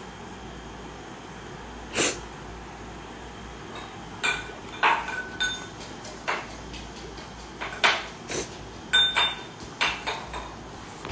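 A woman crying without words: a string of short, sharp sniffs and sobbing catches of breath, one about two seconds in and then coming close together through the second half.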